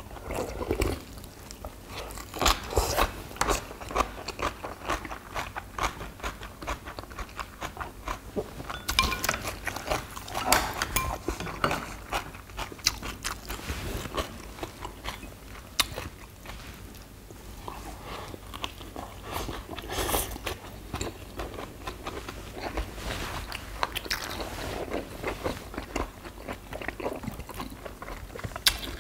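People eating stew close to the microphone: slurping broth and chewing, with many short sharp clicks scattered throughout.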